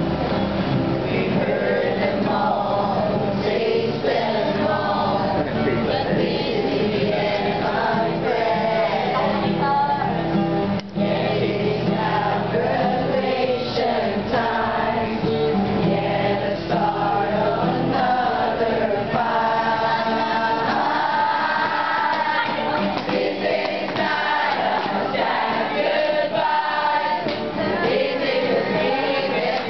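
A group of voices singing a song together in chorus, carrying on without a break.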